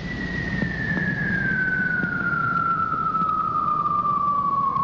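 A siren sounding one long tone that falls slowly and steadily in pitch, over a low rumble.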